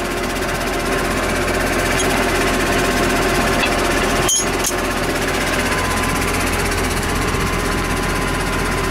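Tractor's diesel engine idling at close range, a steady, even running sound, cutting out for an instant about four seconds in.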